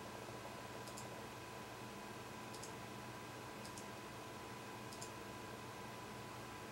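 Four faint computer mouse clicks, each a quick double tick of press and release, spread a second or so apart over a steady background hum.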